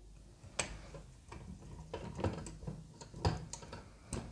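Small screws being driven by hand into a scale model car's wheel rim, the screwdriver making irregular light clicks and ticks, a few a second.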